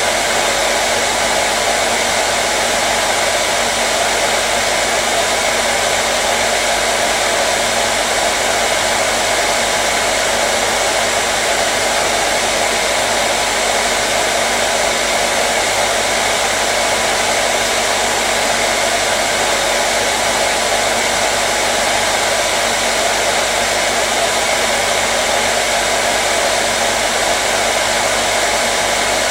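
Hair dryer running continuously with a steady, even rush of air and motor hum, unchanging throughout.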